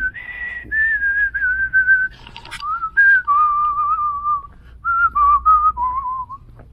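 A man whistling a tune through his lips: clear held notes and short phrases, the melody stepping down lower in pitch before it stops near the end.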